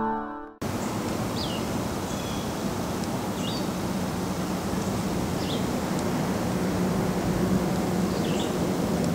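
Steady outdoor rumble, with a small bird's short, high, falling chirps every couple of seconds. A short synth jingle cuts off just after the start.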